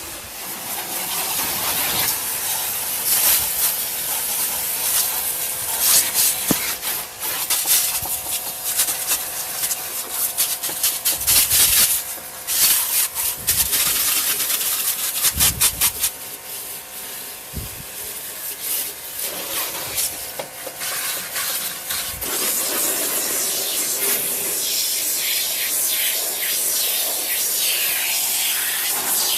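Spray hissing over a car's engine bay during an engine wash: a steady hiss that comes and goes in bursts, with a run of quick pulses around the middle and a few dull knocks.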